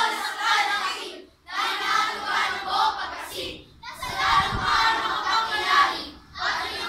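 A class of children reciting together in unison in Filipino, as a choral speech (sabayang pagbigkas), in phrases of a second or two with short breaths between.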